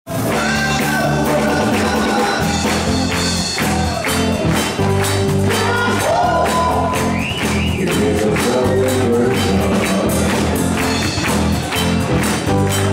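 Live band music with piano and bass guitar, a crowd of voices singing, and many hands clapping along on the beat.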